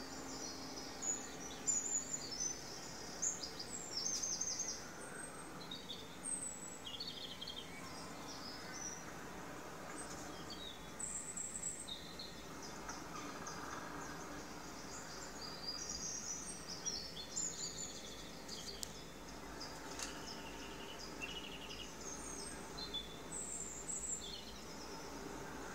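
Small songbirds chirping from a bird video played on a television: many short, high chirps in quick clusters throughout, over a steady faint hiss.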